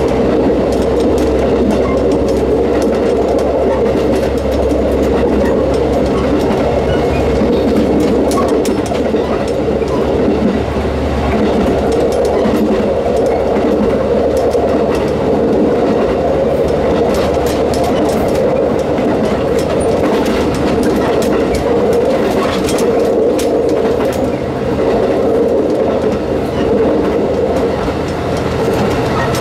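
WT3000 diesel railcar running along the line: a steady engine and running drone with clickety-clack and frequent short clicks and rattles from the wheels and fittings. The deepest part of the drone falls away about a third of the way in.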